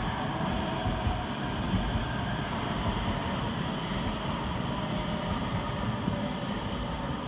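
Rotterdam RET metro train passing on the rails, a steady rumble of wheels and running gear.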